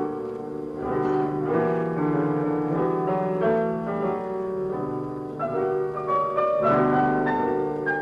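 Instrumental music bridge of held chords with a melody moving above them, marking a scene change in a radio drama.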